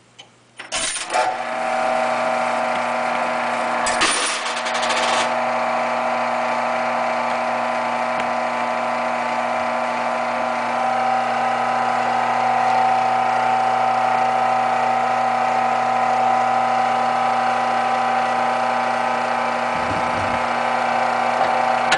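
The electric motor and belt-and-pulley drive of an antique moving model machine start with a click about a second in, then run with a steady hum and whir. A clattering rattle comes about four seconds in, and the running sound cuts off suddenly at the very end.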